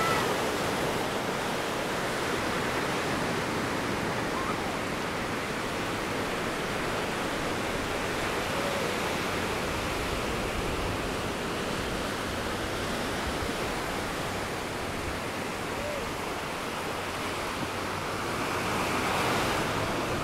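Ocean surf washing steadily onto the beach, a continuous rush of breaking waves that swells a little louder near the end.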